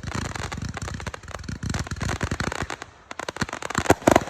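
Fireworks going off: a rapid crackle of many small pops for about three seconds, then after a short lull a run of louder separate bangs near the end.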